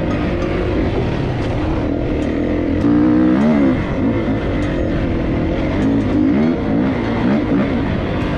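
Dirt bike engine under way, revving up and down as the rider works the throttle, its pitch rising and falling again and again.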